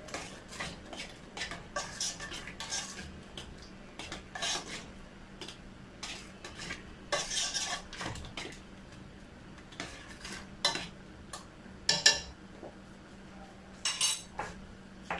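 A spoon scraping and clinking against the side of a stainless steel saucepan while paprika is stirred into shrimp tomato sauce. The strokes are irregular, with a few sharper knocks near the end.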